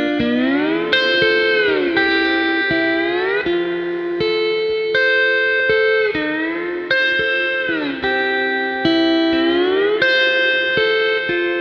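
Background music: a guitar playing sustained chords that slide smoothly up and down in pitch between held notes, in the manner of a slide or steel guitar.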